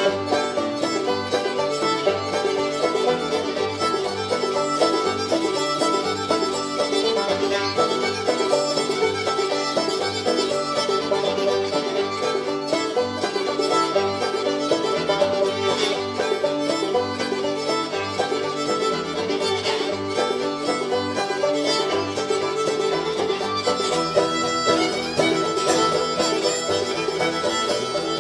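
Background music: an upbeat bluegrass-style tune with fiddle and banjo over a steady beat.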